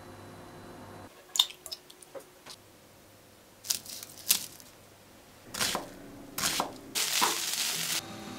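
Close-miked kitchen cooking sounds in quick succession: sharp knife cuts into an onion on a cutting board, then wet, squishing scrapes, and a dense hiss lasting about a second near the end.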